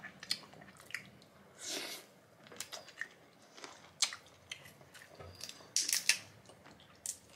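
Someone eating boiled jumbo prawns: wet chewing and biting with scattered sharp clicks and crackles, the loudest crackles about six seconds in.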